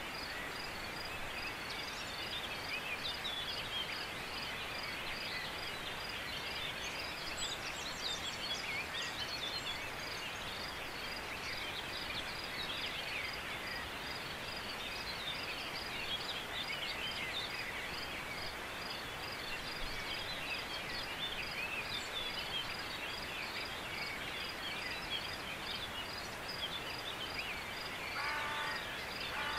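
Wild birds singing over a steady outdoor hiss, with a high, regular ticking note repeating about two or three times a second. Near the end there is a short run of lower, pitched call notes.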